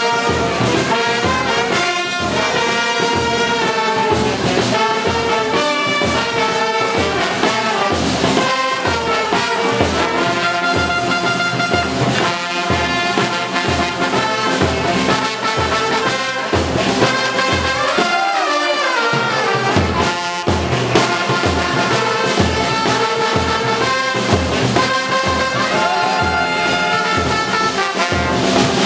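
Instrumental music led by brass horns over a steady bass beat of about two pulses a second, with a falling slide in the melody about two-thirds of the way through.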